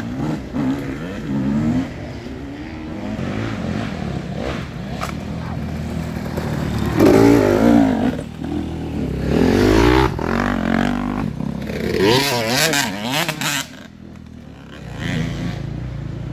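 Several enduro dirt bikes revving hard one after another as they climb a steep muddy bank, their engine pitch repeatedly rising and falling. The last bike's engine drops away about fourteen seconds in.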